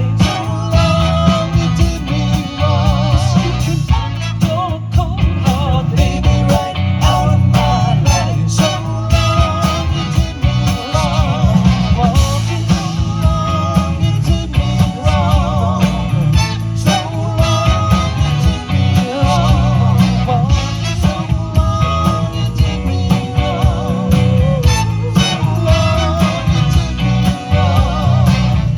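Live band music from a horn band: a rock-blues tune with drums and a full bass line under a wavering, vibrato-laden melody line.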